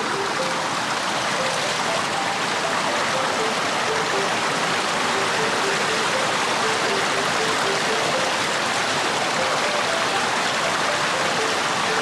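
River water rushing steadily through a concrete irrigation intake gate, a loud, even flow.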